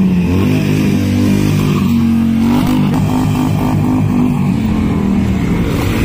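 Several motorcycle engines running close by as a group of bikes rides slowly around. The engine notes rise and fall with light revving.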